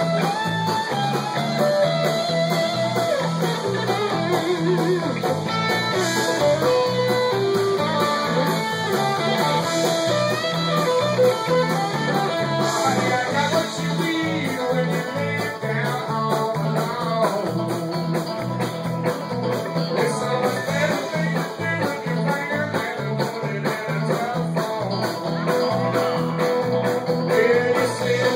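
Live band music led by electric guitar, with banjo, bass guitar and drum kit keeping a steady groove under a moving guitar line.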